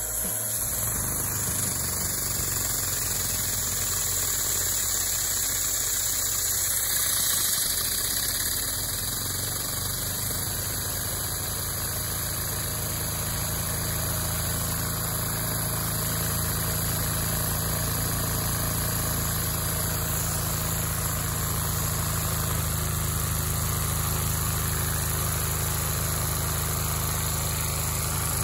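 Vacuum cleaner running steadily, its suction driving a Lego dual-overhead-cam vacuum engine. A fast, even mechanical clatter from the engine runs under the steady hiss of the suction.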